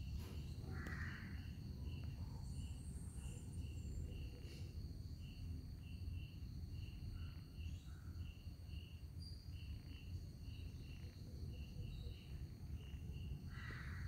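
Faint insect chirping: a short high chirp about two or three times a second, over a low steady hum.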